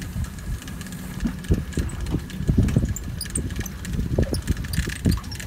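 Wind buffeting the microphone: an uneven low rumble that surges irregularly, with a few faint clicks over it.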